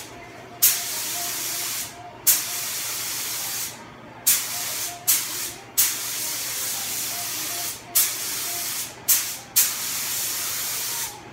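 Compressed-air paint spray gun hissing in about eight separate bursts of one to two seconds each, every burst starting with a sharp blast as the trigger is pulled, as paint is sprayed onto a car body.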